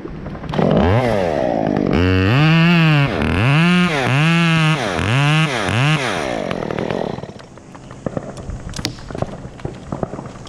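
Two-stroke chainsaw cutting, its engine pitch rising and falling about five times as the throttle is worked. Near seven seconds in it drops away, leaving scattered clicks.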